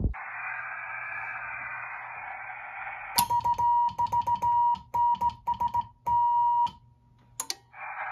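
Heathkit HW-101 transceiver's speaker: receiver hiss, then the CW sidetone, a steady high tone keyed in Morse code for about three and a half seconds, with a click at each key stroke and ending in a long dash; the hiss comes back near the end. The sidetone comes from a homemade phase shift board standing in for the original PEC, and it works.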